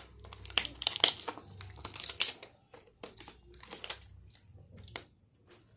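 Plastic packaging crinkling and crackling in irregular bursts as a wrapped layer of a toy package is pulled open by hand, with a final click near the end.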